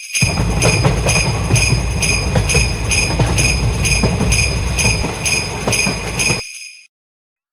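Japanese railroad-crossing warning bell ('kan-kan') ringing steadily about twice a second, over the low rumble and clatter of a passing train. Both stop abruptly about a second before the end.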